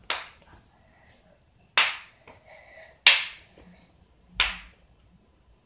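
Four sharp clicks, about one every 1.3 seconds, with a few fainter ones between them.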